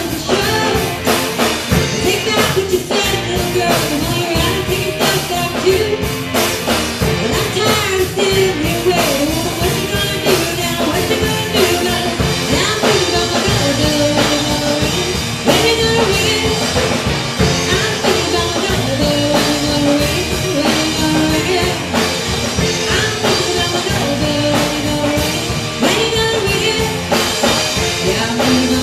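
A rock band playing a song, with a lead vocal over a drum kit and other instruments, loud and continuous.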